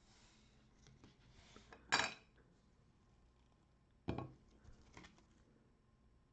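Trading cards and pack wrappers being handled on a tabletop: soft rustling, then two sharp clacks about two seconds apart, the first the louder.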